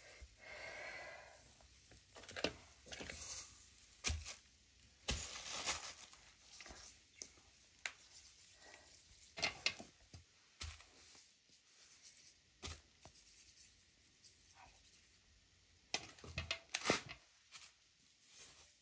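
Halved potatoes being handled over a metal bowl: intermittent short scrapes and sharp knocks, with a few louder clacks.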